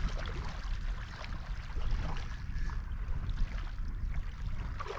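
Wind rumbling on the microphone over the gentle lapping of small waves at the water's edge.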